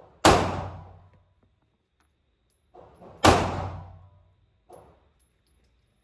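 Two loud pistol shots about three seconds apart, each echoing off the walls of an indoor range and dying away over nearly a second, with fainter, shorter shots in between and after.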